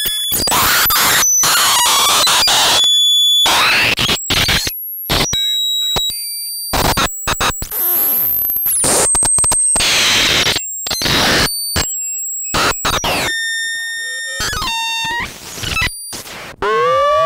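Homemade "Ton of Noise" synthesizer module putting out harsh, glitchy electronic noise as its knobs and toggle switches are worked: bursts of hiss and shrill steady tones that cut in and out abruptly, with a falling glide about halfway. Near the end it switches to a tangle of sweeping, chirping pitch glides.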